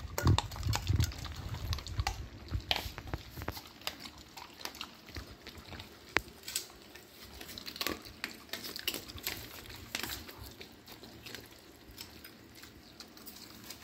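Dogs eating shredded chicken in broth from stainless steel bowls: irregular wet chewing and licking with scattered sharp clicks, busiest near the start and again in the middle.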